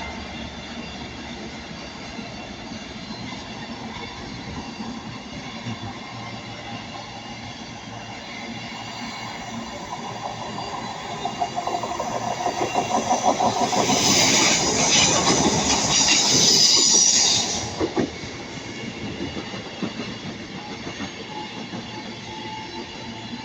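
A train passing on the line, wheels clattering over the rails as it approaches, then a loud close pass with a high-pitched wheel-on-rail hiss for about three to four seconds that cuts off sharply, leaving a low rumble.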